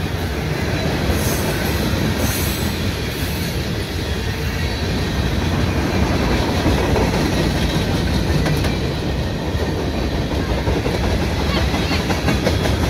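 Freight train of tank cars rolling past: a steady rumble of steel wheels on the rails, with clickety-clack over the rail joints that is plainest near the end.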